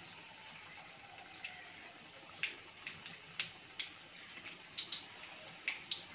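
Gram-flour-battered green banana fritters (beguni) deep-frying in hot oil in a karahi: a faint, steady sizzle with scattered crackles and pops.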